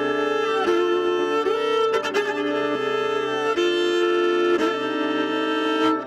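Viola bowed in sustained notes, with several pitches sounding together and the notes changing every second or so.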